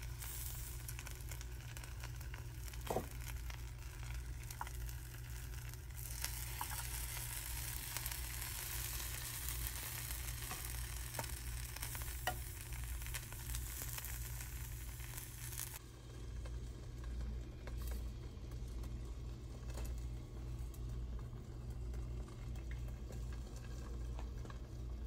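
Coconut-rice pancake batter sizzling in the cups of a hot khanom krok pan, with a few light clicks, over a steady low hum. The sizzle cuts off suddenly about two-thirds of the way through.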